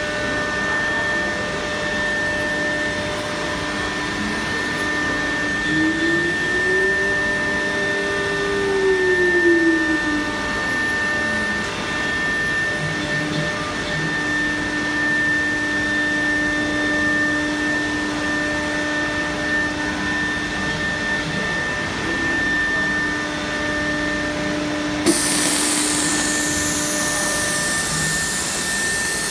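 A 6090 mini CNC router running, its spindle giving a steady high whine while the axis motors hum, rising and falling in pitch as the machine moves. About 25 seconds in comes a sharp click, then a louder hiss.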